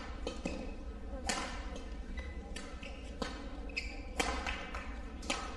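Badminton rally: sharp racket hits on the shuttlecock about once a second, the loudest about four seconds in, with brief squeaks of court shoes on the floor between them.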